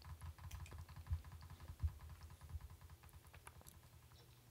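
Faint, scattered clicks of a computer mouse and keyboard over a low steady hum.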